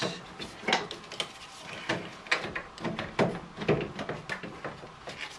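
Hands working parts into place in a car's engine bay: irregular clicks and light knocks of hard parts bumping and shifting.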